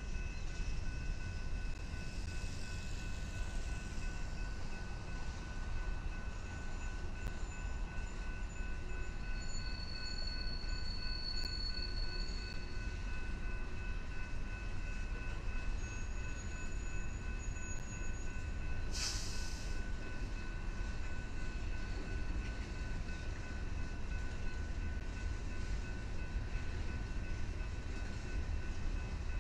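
Freight train cars rolling past on jointed track, a steady low rumble of wheels on rails. A thin high squeal runs for a few seconds near the middle, and a short hiss comes about two thirds of the way in.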